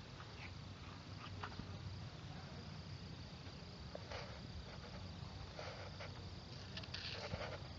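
Insects chirring in a steady high drone, with a few brief faint rustles.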